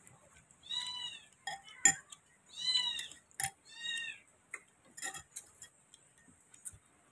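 A cat meowing three times, each call rising and falling, with sharp clinks of a metal fork and spoon against a ceramic bowl between the calls, the loudest clink about two seconds in.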